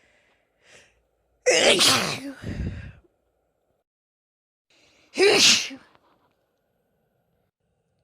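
A woman sneezing twice, loud each time, the second sneeze about three and a half seconds after the first and shorter. Each sneeze is preceded by a faint breath in.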